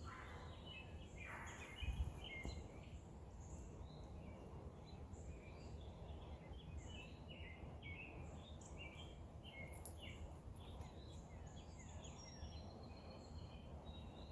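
Small birds chirping in many short calls, faint over a low outdoor rumble, with one louder low bump about two seconds in.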